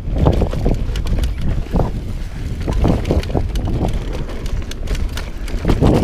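Mountain bike riding fast on dirt singletrack: tyres rumbling over the trail with many short rattles and clicks from the bike over roots and bumps, and wind buffeting the camera microphone.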